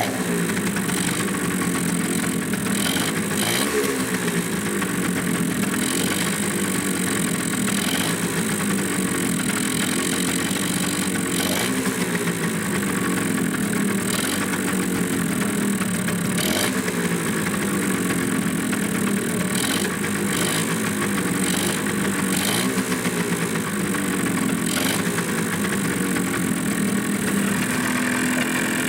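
Suzuki GP100's single-cylinder two-stroke disc-valve engine running on a test stand, its revs wandering up and down unevenly.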